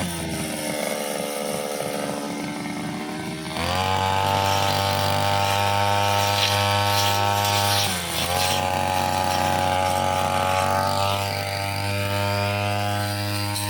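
Two-stroke brushcutter engine running at high revs; its pitch sits lower for the first three and a half seconds, then it revs back up, with a brief dip and recovery about eight seconds in.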